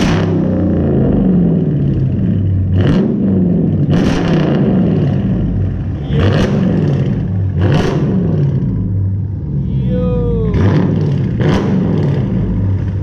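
Dodge Charger R/T's 5.7-litre Hemi V8, with its mid-muffler and muffler deleted, idling and blipped about seven times, each rev rising and falling quickly.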